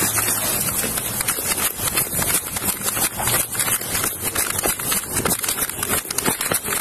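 Running footsteps pounding on pavement in quick regular strides, heard through a chest-worn police body camera that rubs and jolts with each stride.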